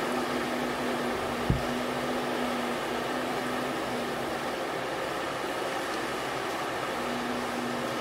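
Steady rushing noise of Gulf of Mexico surf, with a faint low hum that comes and goes and a single low thump about a second and a half in.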